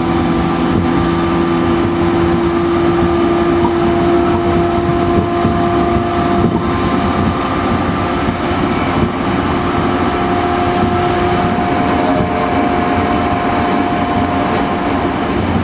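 JR East E231-1000 series electric train running at speed, heard from inside the car: a steady whine from its MT73 traction motors over loud rumbling wheel and rail noise. One of the whine's tones fades out about two-thirds of the way through while a higher one holds.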